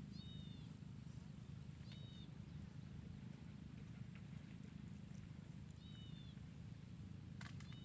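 Faint outdoor ambience: short downward-bending chirps from a bird repeat four times, two to four seconds apart, over a steady high thin whine and a low rumble.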